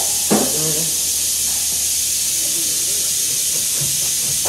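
Steady, even hiss, loudest in the treble, with a low hum beneath and a few faint voices over it.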